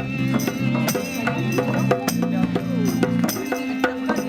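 Live band playing, with drums keeping a steady beat over a bass line.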